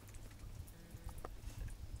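Faint small water sounds, a few soft drips and laps, as a dog shifts in the shallow water of a plastic kiddie pool, over a low rumble.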